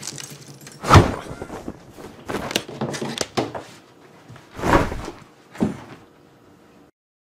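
A series of thumps and knocks with cloth rustling, as clothes are handled and pushed into a plastic laundry basket: one knock about a second in, a quick cluster a little later, then two more near the end.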